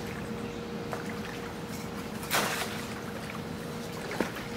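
A short splash of lake water about two seconds in, over small waves lapping at the shore and a faint steady hum, with one sharp click near the end.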